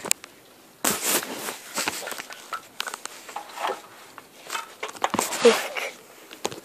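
Handling noise from a handheld camera being carried and moved about: irregular rustling, bumps and clicks with footsteps, the loudest bump about five and a half seconds in.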